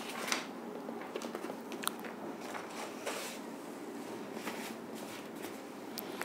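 Faint scattered clicks and rustles of a person moving about off-camera, over a quiet room hiss.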